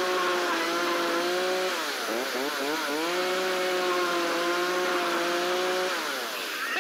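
Gas-powered two-stroke chainsaw running at high revs as its bar cuts into a plastic bucket. The engine speed wavers and dips about two seconds in, picks back up, then falls away near the end.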